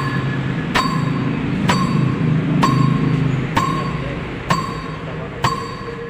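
Music playing through a sound system on test: a bright ringing hit repeats about once a second over a low, steady bass tone.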